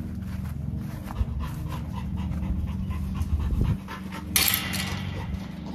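An XL pitbull-type dog panting rapidly and steadily. About four seconds in there is a short loud burst of hissing noise.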